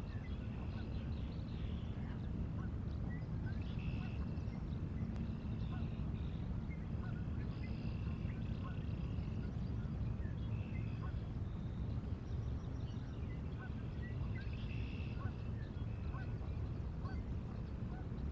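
Birds calling repeatedly in short, high calls that come in runs of several, over a steady low rumble.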